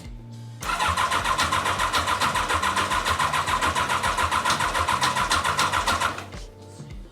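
Suzuki Grasstracker's air-cooled single-cylinder four-stroke engine running with a rapid, even beat of about ten pulses a second. It cuts in about half a second in and stops abruptly near the end.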